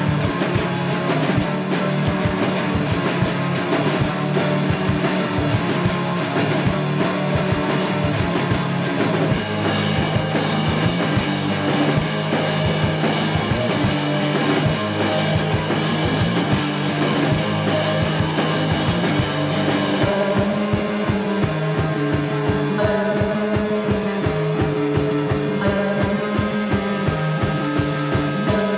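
Rock music soundtrack with a steady beat. From about nine seconds in, the high end drops away and the music sounds muffled, then it opens up again at about twenty seconds.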